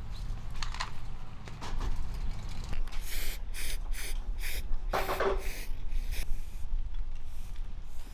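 Aerosol spray can hissing in a run of short bursts, about two a second over some three seconds, as a welded steel tube frame is spray-painted; a louder burst with a brief metallic ring comes about halfway through.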